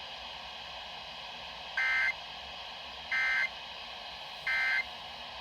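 Emergency Alert System SAME data bursts: three short, buzzy two-tone digital chirps about 1.3 seconds apart over steady radio hiss. This is the end-of-message code that closes an EAS broadcast.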